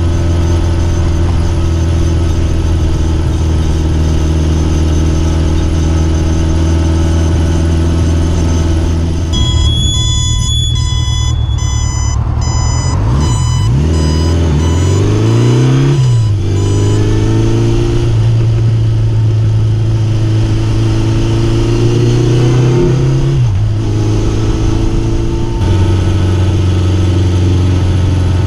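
Honda CB750's inline-four engine running on the road, holding a steady pitch while cruising. About halfway through, the pitch climbs in two or three rising sweeps broken by short dips as the bike accelerates through gear changes, then settles back to a steady cruise.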